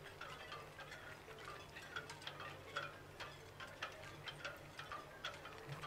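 Faint, irregular light clicks and clinks, a few each second, over a low steady hum.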